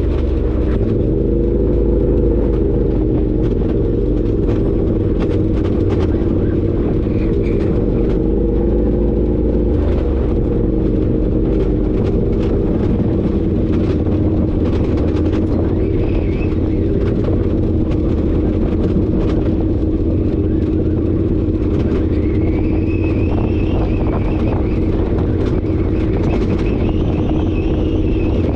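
Side-by-side UTV engine running steadily while the machine drives along a dirt trail, with frequent sharp clicks and knocks over the drone.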